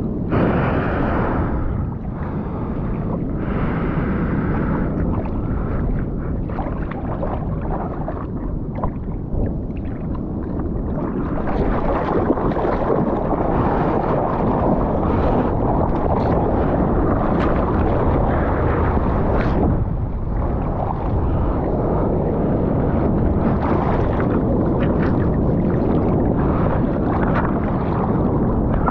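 Surfer paddling a surfboard out through choppy water: hand strokes splashing and water rushing and sloshing steadily around the board, louder and busier from about a third of the way in.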